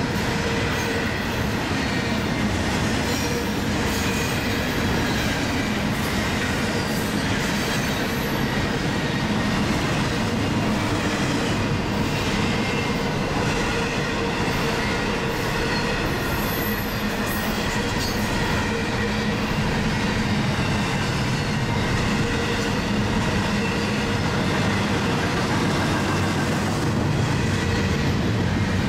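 Double-stack intermodal container train rolling past at close range: a steady rumble and clatter of well-car wheels on the rails, with a thin steady wheel squeal over it.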